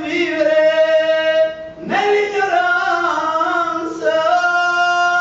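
A man singing a devotional bhajan, holding long notes in three phrases of about two seconds each, with short breaks between them.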